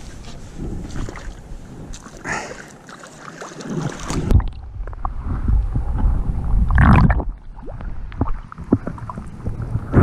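Lake water splashing and sloshing around a swimmer. From about halfway through, the sound turns muffled, with a low bubbly rumble, as the microphone goes underwater, and it splashes again as it comes back up near the end.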